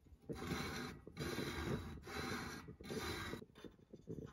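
Sliding metal cover plate over the flame window of a Toyotomi Moon Lighter round kerosene heater, moved back and forth by hand to check the flame: four scraping strokes of metal rubbing on metal.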